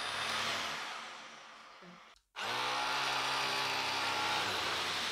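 Vacuum cleaner motor winding down, its whine falling away to silence about two seconds in, then starting up again abruptly and running steadily.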